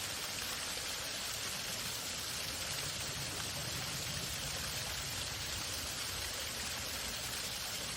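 Waterfall: falling water rushing steadily.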